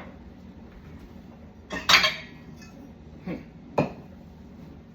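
Dishes and glasses clinking as they are unloaded from a dishwasher and put away: one loud clatter about two seconds in, then two softer knocks a little before four seconds.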